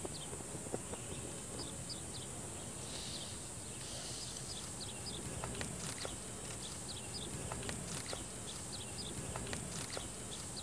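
Rural outdoor ambience: small birds chirping in short repeated calls over a steady high hiss, with a few faint clicks in the second half.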